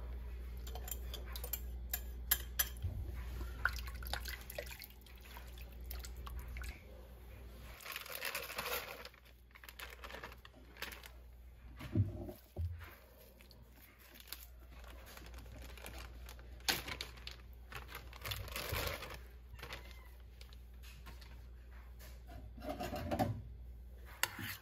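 Kitchen handling sounds at a slow cooker: a thin slurry poured in with a splash, broccoli florets dropped in with rustles and soft thuds, and a metal spoon knocking and scraping in the stoneware crock. The knocks and rustles come irregularly, the sharpest a little under halfway through.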